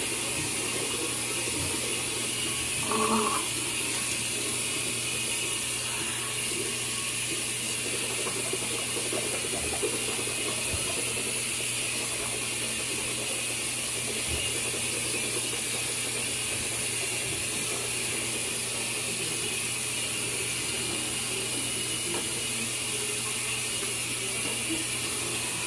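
A small motor running with a steady whirring hiss over a low hum, and a short knock about three seconds in.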